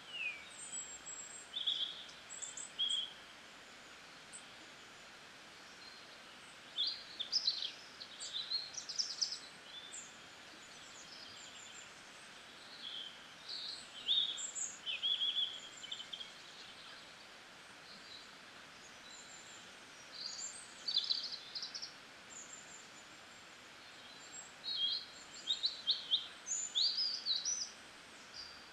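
Birds chirping in short high-pitched clusters every few seconds, over a steady background hiss.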